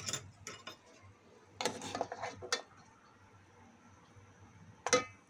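Metal spoon clinking and scraping against a steel pot while lifting boiled eggs out of the water: a few light knocks, a cluster of clinks about two seconds in, then one sharper clink near the end that rings briefly.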